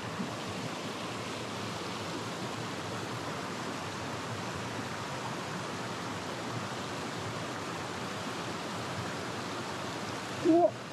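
Shallow mountain stream rushing steadily over rocks and a small cascade. A short pitched sound cuts in briefly near the end.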